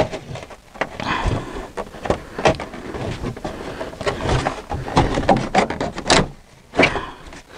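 Plastic interior trim panel in a Tesla Model S being pried and pulled loose by hand: irregular clicks and knocks of the trim and its clips, with plastic rubbing and scraping against the surrounding panels.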